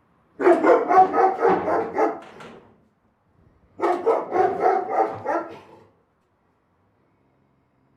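A big dog barking in two quick runs of about four barks a second, each lasting about two seconds, with a short pause between them.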